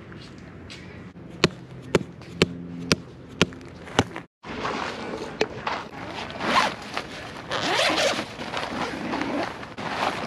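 About six sharp clicks in the first few seconds as metal tent stakes are handled, then, after a cut, the zipper of a tent carry bag being pulled open and the tent's fabric rustling and scraping as it is unpacked.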